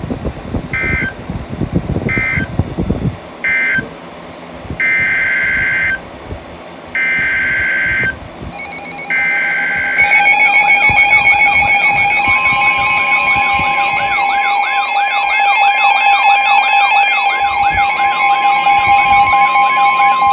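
Emergency Alert System data tones: three short, shrill bursts that close the previous message, then three longer bursts that open the next alert. About halfway through, an alert attention signal takes over: a steady two-tone alarm with a wavering, siren-like tone over it and a single steady tone joining soon after.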